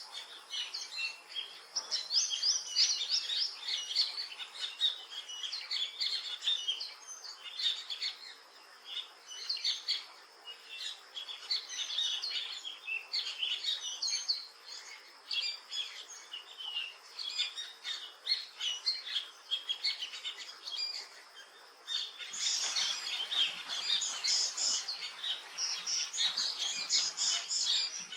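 Songbirds chirping, a dense run of rapid, short, high chirps that grows louder and busier about three-quarters of the way through.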